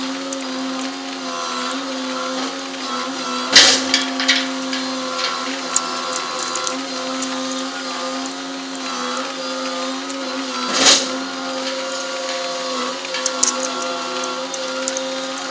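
Crane machinery of a gravel-unloading grab-crane ship running with a steady mechanical whine of several held tones, sped up to double speed. Two brief loud crashes come about seven seconds apart, with lighter clanks between.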